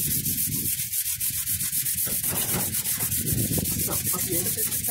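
Sandpaper being rubbed by hand over body filler on a VW Kombi's steel body panel, a steady run of quick back-and-forth scratching strokes.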